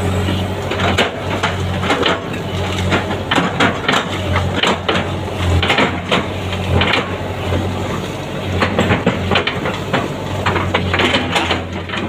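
Hydraulic excavator's diesel engine running with a steady low hum that swells and eases, while its bucket tips out wet soil, with irregular clattering and knocking from dirt and clods falling and from the bucket's metal.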